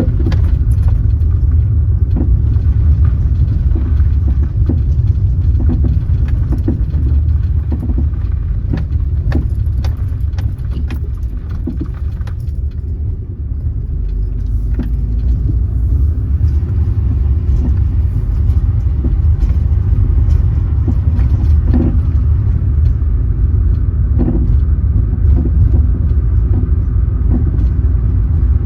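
Steady road and engine rumble of a moving car, heard from inside, with many small clicks and rattles scattered through it. The rumble eases briefly about halfway through.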